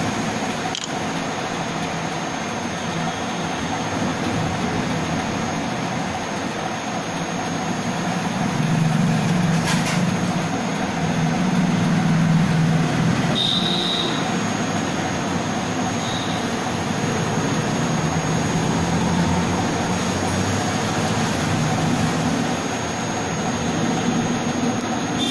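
Steady mechanical rumble and hiss with a low hum that swells and eases over several seconds, and a short high tone a little past the middle.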